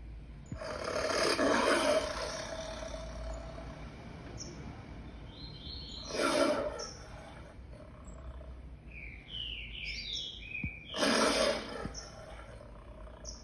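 A lion roaring in three loud, rough bursts, the first about two seconds long and the next two shorter, with birds chirping in between.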